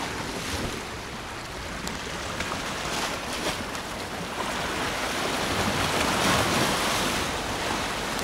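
Choppy sea washing against rocks and stone harbour walls: a steady rushing surf that swells louder about five seconds in.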